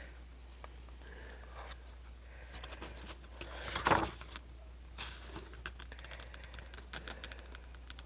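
Small handling noises: scattered light clicks and taps as snack packets and the box's contents are sorted through, with one louder rustle about four seconds in.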